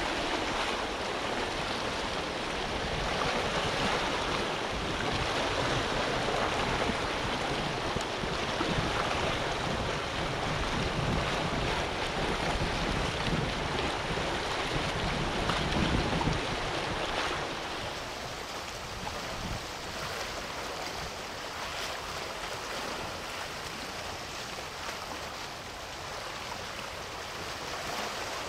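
Steady rush of wind and sea water, with wind buffeting the microphone. It becomes quieter and loses its low rumble about 17 seconds in.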